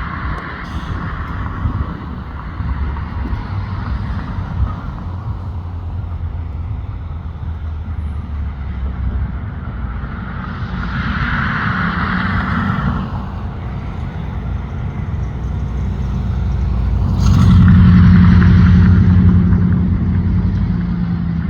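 Road traffic: vehicles passing with a steady low rumble, one swelling past about halfway through and a louder one with an engine hum about three-quarters of the way in.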